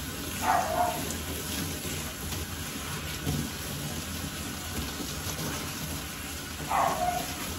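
Water spraying steadily from a handheld bath sprayer onto a wet French Bulldog's coat in a stainless steel grooming tub, an even, rain-like hiss and patter. A brief higher-pitched sound falling in pitch cuts in about half a second in and again near the end.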